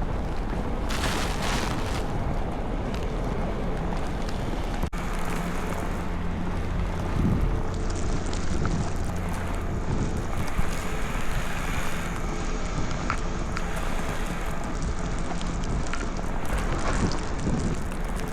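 City street traffic running steadily, with wind buffeting the microphone in a snowstorm.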